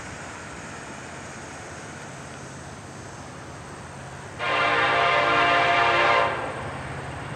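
BNSF SD70ACE diesel locomotive approaching with its engine drone steady underneath, then sounding its horn in one long blast of about two seconds, starting about four and a half seconds in.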